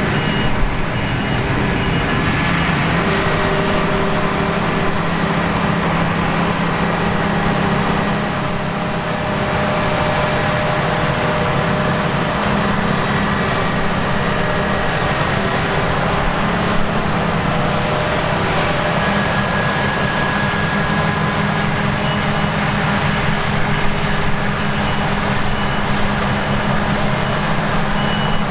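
Claas Lexion 780 TT combine harvester running steadily while harvesting grain, its engine drone mixed with the whir of the threshing machinery; the sound eases slightly about a third of the way in.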